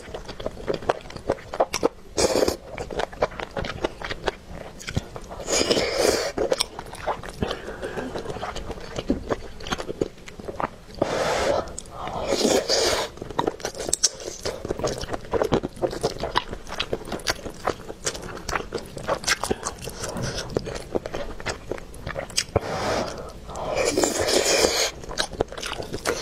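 Close-miked wet eating sounds: steady chewing of saucy rice and noodles with many small mouth clicks and smacks, broken several times by louder slurps, one about two seconds in and a long one near the end.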